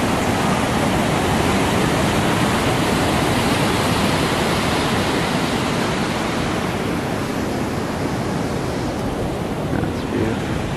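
Ocean surf breaking and washing in, a steady rush of white-water noise that eases a little in the second half.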